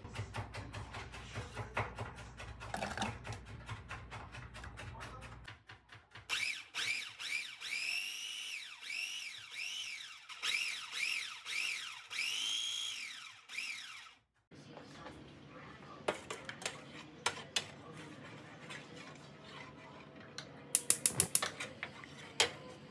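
Knife chopping on a wooden cutting board, then a food processor pulsed about ten times: each press makes a short motor whine that rises and falls as it purées garlic, ginger and apple. A few sharp clinks of cookware follow near the end.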